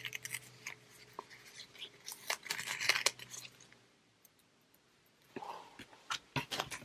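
Washi tape being handled on a paper planner: a run of small crisp clicks and crackles, a pause of about a second and a half, then a few more clicks.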